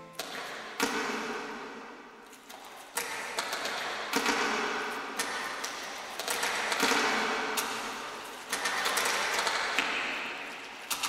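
Experimental electronic music made of dense clicking and crackling mechanical textures with little bass. It comes in swells that start abruptly every second or two and slowly fade.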